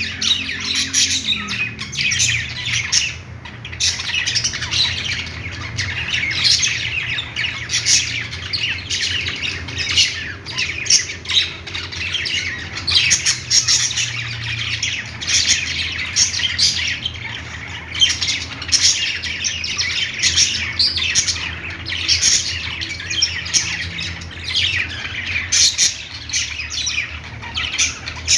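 Several budgerigars chirping and squawking without pause, their short calls overlapping, over a faint low steady hum.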